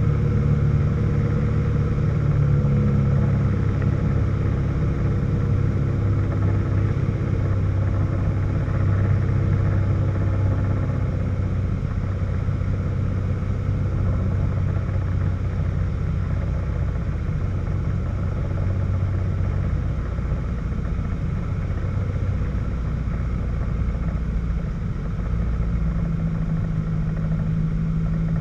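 Light aircraft's piston engine and propeller droning steadily inside the cockpit on final approach. The engine note shifts a few times, with a clear change about 25 seconds in.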